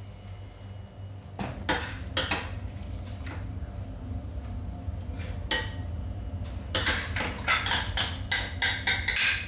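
Metal serving spoon scraping and clinking against a ceramic baking dish and a plate while portions of shepherd's pie are dished out: a few separate clinks, then a dense run of scraping near the end as the dish is scraped out.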